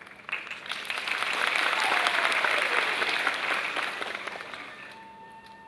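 Audience applause that swells up in the first second, peaks, then dies away over a few seconds; near the end a bamboo flute (dizi) begins holding a steady note.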